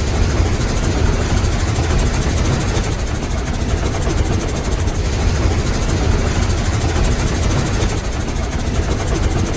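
Steam locomotive exhaust chugging at a fast, even pace with airy steam chuffs over a low rumble, steady and unbroken.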